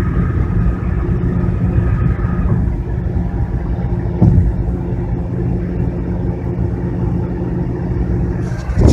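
Car cabin noise while driving: steady engine and road rumble, with a single short knock about four seconds in.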